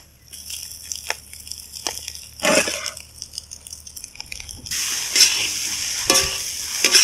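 Vegetables and freshly added cooked rice frying in a large kadai as a metal ladle stirs, knocks and scrapes against the pan. The sizzling is faint at first and becomes much louder about two-thirds of the way through as the rice is stirred into the hot pan.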